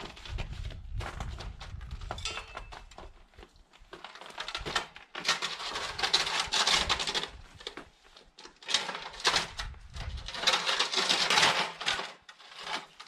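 A sledge being dragged across snow and stones, giving rough scraping and crunching in uneven spells, loudest in two long stretches through the middle and later part.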